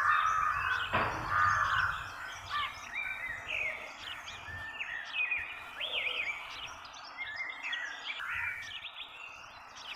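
Birds chirping and calling in many short rising and falling whistles over a steady outdoor background hiss, with a single knock about a second in.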